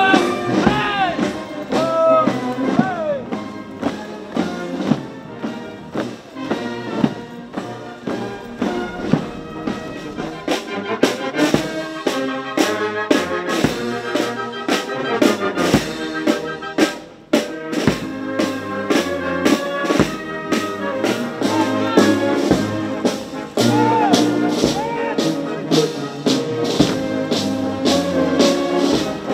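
Military brass band playing a march, with drum beats coming in strongly about a third of the way through.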